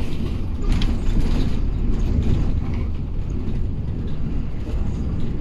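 Cabin noise inside a moving Laksana All New Legacy coach bus: a steady low rumble of engine and road, with light rattling and creaking from the body's fittings.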